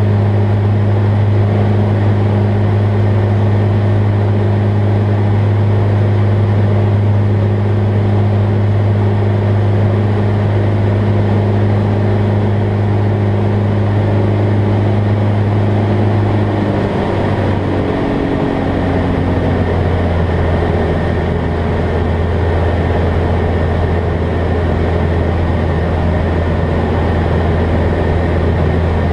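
Jabiru light aircraft's engine and propeller droning steadily, heard inside the cabin. About 17 seconds in, the pitch drops a step and holds lower as power comes back, the nose lowering from the climb towards level flight.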